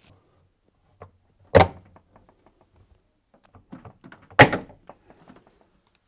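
Two sharp plastic snaps, about three seconds apart, as the two top clips of a fridge's evaporator fan cover are prised free with a flathead screwdriver. Faint small clicks and scrapes come between them.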